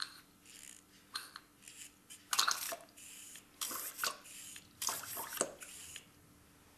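Faint pumping of a hand-held dosing syringe's trigger, with water splashing and dripping into a glass beaker in short bursts about a second apart as the syringe is primed with water.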